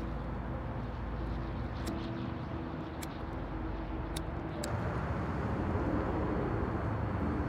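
Steady outdoor street ambience: a low hum like distant traffic, with a few faint clicks in the middle.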